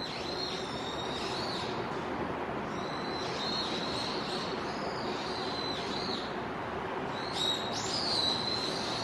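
A bird singing high whistled notes with quick dipping flourishes, in three phrases, over a steady low hum.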